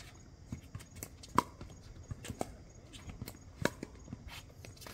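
Pickleball paddles striking the hollow plastic ball in a rally at the net: a series of sharp pocks roughly a second apart, the loudest a little over a second in.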